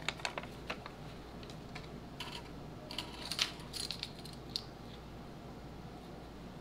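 Small kitchen utensils clicking and clinking, such as measuring spoons against a bowl while ingredients are measured out. The clicks come in scattered groups and stop about four and a half seconds in, leaving a low steady hum.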